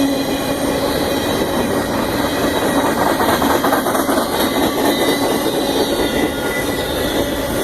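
Union Pacific train cars rolling past at close range, a steady loud rumble and rattle of wheels on rail with thin high-pitched squealing tones from the wheels held over it.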